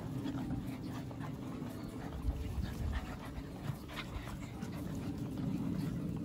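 A pack of puppies and a larger dog panting and scrambling about as the puppies crowd and jump on it, with scattered soft clicks and a few low knocks.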